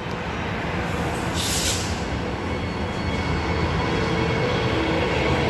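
Six-car Transperth electric train pulling out of the station, a steady rumble with a faint motor whine that grows a little louder as it gets under way. There is a short hiss about a second and a half in.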